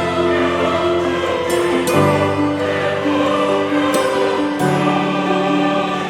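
Background music: slow sustained choir-like chords that change every couple of seconds.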